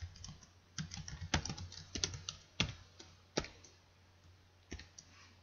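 Typing on a computer keyboard: a quick run of key clicks for a few seconds, then a pause and a couple more clicks near the end.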